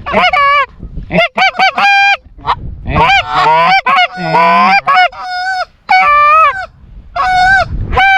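Goose honking: a rapid string of loud honks and clucks in quick runs separated by short breaks.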